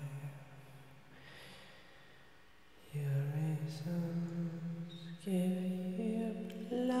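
A man's voice singing long, low, wordless held notes in a chant-like way, stepping to a new pitch every second or so, with a quiet pause between about half a second and three seconds in.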